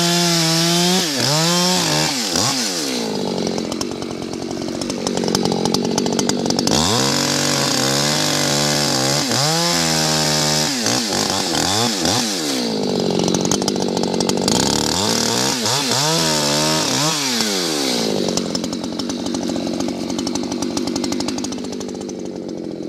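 Echo chainsaw with a modified muffler bucking maple logs. The engine note sags under load in the cut and climbs back up as it revs free between cuts, several times over. Near the end it runs steadier and a little quieter.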